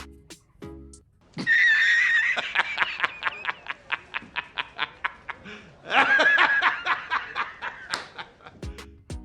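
High-pitched giggling laughter in two bouts, each starting loud and breaking into quick pulses, with background music stopping briefly around it.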